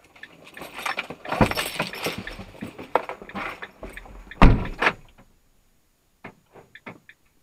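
Rattling, clicking and knocking from handling inside a vehicle cab, with one loud knock about four and a half seconds in. From about six seconds, short sharp ticks repeat evenly about three times a second, like a turn-signal relay.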